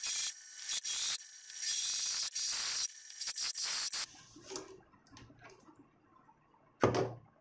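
Drill-press hole saw cutting through a metal block: a harsh, high-pitched scraping of the teeth in the cut that starts and stops repeatedly for about four seconds. Then a few small clicks, and one sharp, loud knock near the end.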